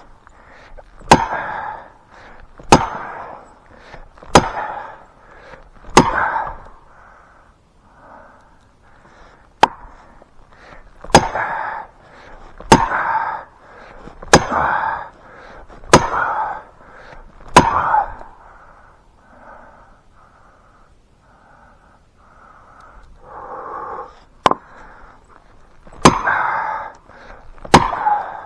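Steel felling wedges being hammered into the back cut of a hard-leaning spruce: sharp metal strikes about one and a half seconds apart, in runs of four to six with short pauses between. The tree is being jacked over against its lean.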